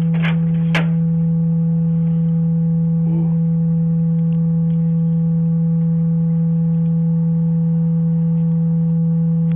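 A loud, steady low electrical hum with fainter higher overtones that does not change, the kind of hum picked up on a Ring doorbell camera's audio.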